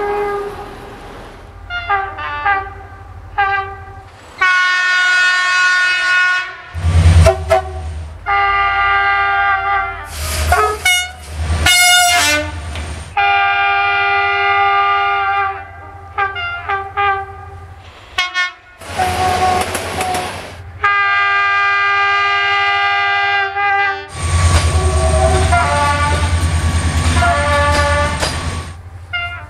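A rapid series of Romanian locomotive horn blasts, cut one after another: short toots mixed with several long, steady multi-note chord blasts. A low rumble of a passing train sits under some of the long blasts.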